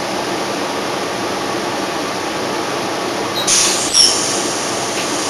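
Cabin noise inside a 2010 NABI 31-LFW CNG transit bus under way: its Cummins L-Gas engine and the road make a steady rumble. About three and a half seconds in there is a brief hiss with a short high squeal, loudest at about four seconds.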